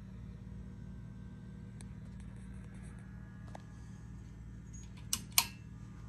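SMC DC42 ceiling fan running with a steady motor hum. About five seconds in, two sharp clicks a fraction of a second apart stand out over it.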